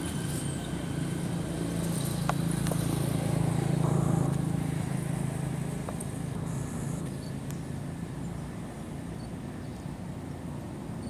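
Low hum of a passing motor vehicle's engine, swelling to its loudest about four seconds in and then fading, with a few faint clicks.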